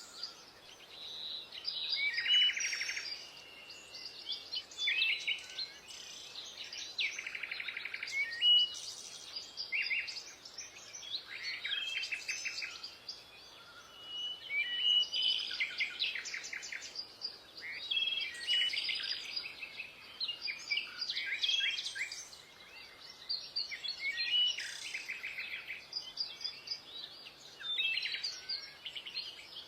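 Birds chirping and singing continuously, fast trills and short rising notes repeated with brief pauses.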